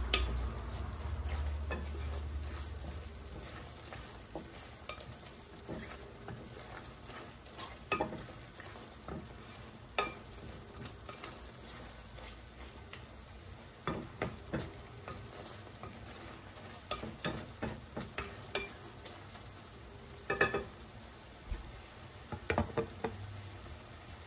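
Wooden spoon stirring clams in adobo sauce in a stainless steel pan, with scattered knocks and scrapes against the pan, over a faint sizzle as the sauce cooks down. A low hum fades out over the first few seconds.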